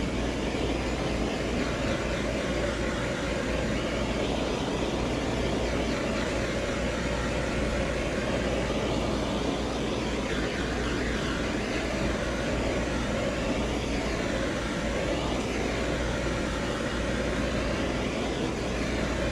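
Handheld gas pencil torch burning with a steady hiss while its flame heats a badge on a truck's body.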